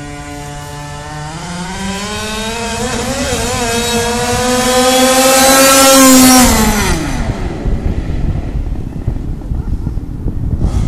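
Two-stroke gas engine of an HPI Baja 5T, a 1/5-scale RC car, revving higher and higher under throttle as the car speeds in. It is loudest about six seconds in, then its pitch falls sharply as the car passes and pulls away, leaving a rough noise with no clear pitch.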